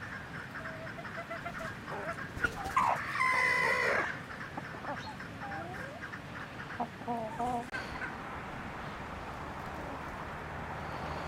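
Chickens clucking, with one loud drawn-out call lasting about a second around three seconds in and a quick run of short clucks about seven seconds in.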